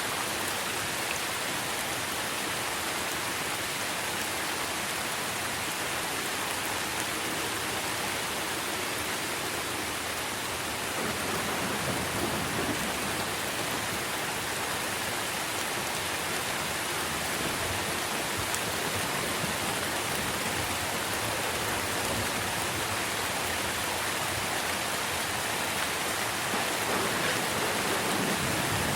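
Steady rain falling on tree leaves, a dense even patter. A low rumble of distant thunder swells about twelve seconds in and again near the end.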